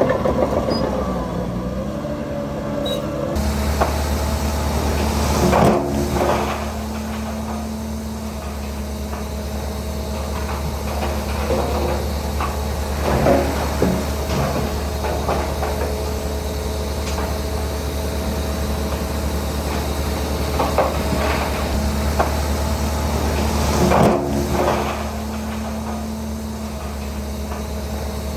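Heavy diesel earthmoving machinery at work: an engine running with a steady low drone, with a few loud clanks and knocks now and then. The sound changes abruptly about three seconds in.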